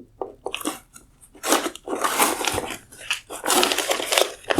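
Painter's tape being peeled off a plastic headlight lens and crumpled: ripping and crinkling noises, a few short ones at first, then longer and louder tearing from about a second and a half in.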